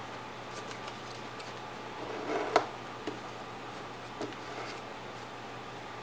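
Paper being folded by hand: a short rustle building to one sharp crisp snap about two and a half seconds in as a crease is pressed flat, then two faint taps, over a steady low hiss.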